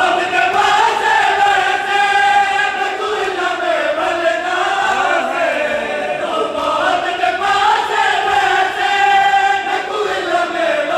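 Men's voices chanting a noha, a Shia mourning lament, together in unison, with long held notes that rise and fall.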